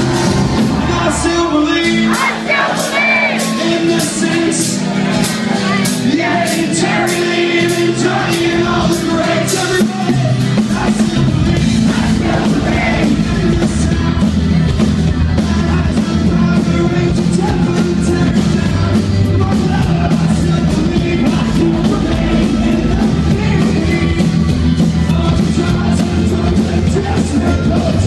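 Live band playing loudly with acoustic guitar and drums, voices singing along. About ten seconds in, a heavy bass comes in and the full band fills out.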